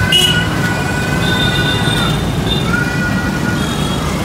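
City road traffic heard from a moving motorcycle: steady engine and road noise, with a long high-pitched tone over it that dips briefly about two seconds in and then resumes.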